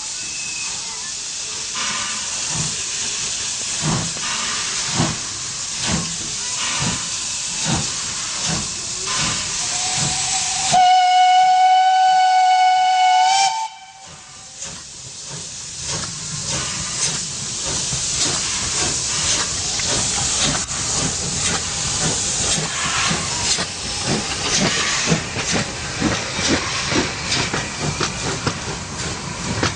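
Steam locomotive hissing steam with regular chuffs, then a single-note steam whistle blown for about three seconds, about eleven seconds in. After it the train runs on with steam hiss and a quicker rhythmic clatter.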